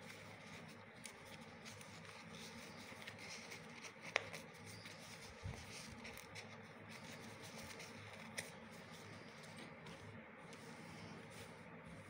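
Faint rustling and rubbing of cotton fabric as hands turn a sewn strip right side out, with a couple of light clicks, one about four seconds in and one near eight seconds.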